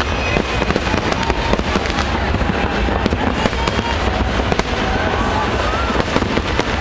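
A dense, unbroken barrage of fireworks: rapid bangs and crackling bursts over a low rumble.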